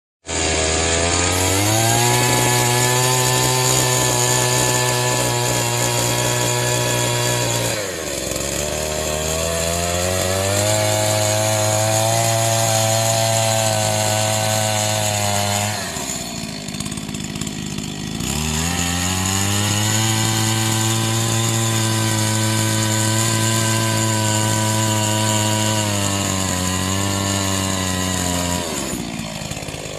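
Chainsaw running while cutting wood, its engine holding a steady high pitch. The pitch sags and recovers three times: about eight seconds in, more deeply around sixteen to eighteen seconds, and briefly near the end.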